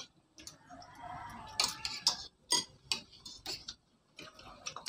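Spoons and forks clinking and scraping against plates as several people eat at a table: irregular light clinks, about two a second.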